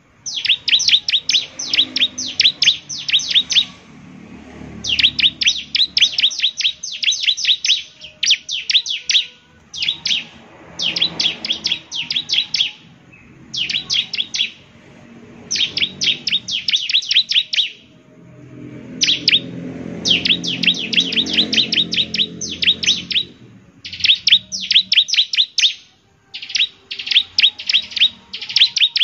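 Bar-winged prinia (ciblek) singing: bursts of rapid, sharp, high-pitched notes, each burst lasting one to two seconds, repeated again and again with short pauses between.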